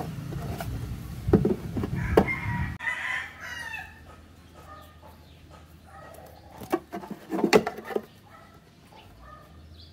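A rooster crows about two seconds in, followed by shorter calls. Sharp clicks and knocks of hard plastic armrest parts being handled, loudest about a second and a half in and about seven and a half seconds in. A low rumble cuts off nearly three seconds in.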